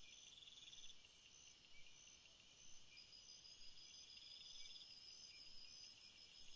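Faint night chorus of crickets and other insects: several high-pitched chirpers and trillers at once, one repeating a short chirp every half second or so, with trills that come and go.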